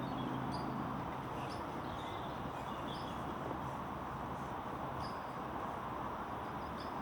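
Small birds chirping now and then, short high notes about once a second, over a steady background rush, with a low hum in the first couple of seconds.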